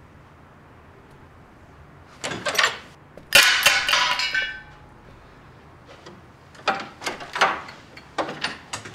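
A door's metal handle and latch clicking as the door is opened. The loudest clack comes about three seconds in, with a short metallic ring, and a few softer knocks and clicks follow near the end.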